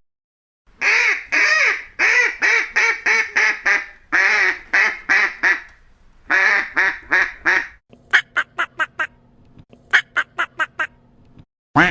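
Ducks quacking in rapid runs of harsh, nasal quacks, three runs in the first eight seconds, then a quicker string of shorter, clipped quacks over a faint steady hum.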